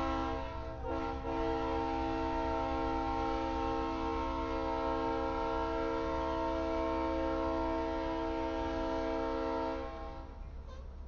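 Multi-chime locomotive air horn sounding a long chord, with a brief break about a second in, then held until it cuts off near the end. A low rumble from the slowly moving freight train runs underneath.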